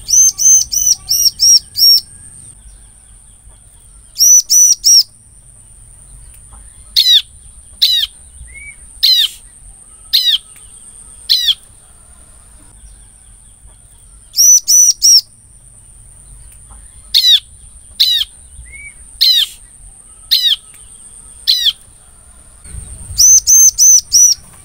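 Bar-winged prinia (ciblek) singing: quick runs of sharp, repeated high chirps alternating with single chirps spaced about a second apart.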